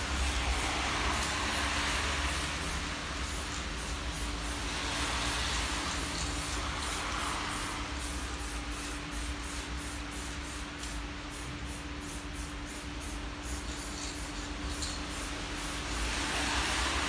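Aerosol spray paint can hissing in several long bursts as black paint is sprayed onto a car tail light housing, over a steady low hum.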